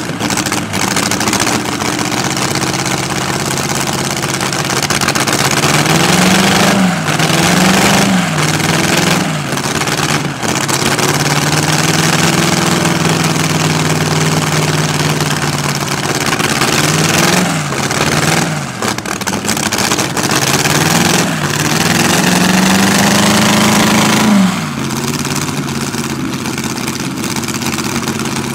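Streamliner C-16's inline sixteen-cylinder engine, built from two Buick straight-eights joined end to end and exhausting through short side stubs, idling with the car standing still. It is revved several times in quick blips and two longer held revs, then drops back to a steady idle near the end.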